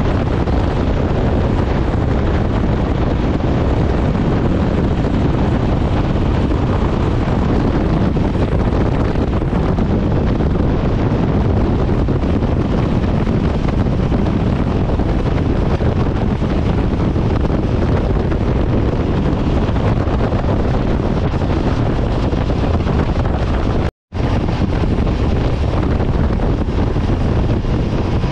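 Steady rush of wind on the microphone and road noise from a motorcycle riding at road speed. It cuts out to silence for a split second near the end.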